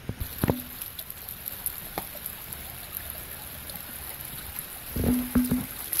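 Shallow creek water trickling steadily over stones, with a few short knocks just at the start and a cluster of them about five seconds in.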